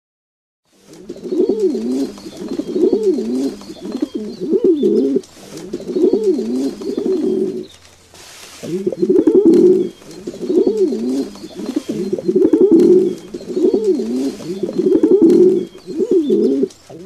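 A flock of feral rock pigeons cooing: many overlapping low coos in a steady chorus. It starts about a second in and has a short lull about eight seconds in.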